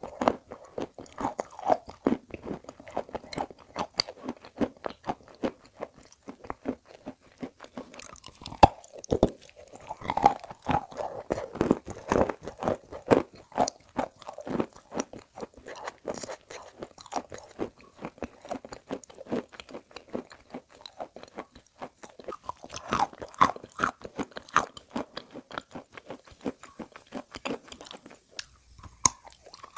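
Close-up crunching and chewing of a block of chalk coated in edible clay paste: a dense run of sharp crunches that goes on without a break until a short lull near the end.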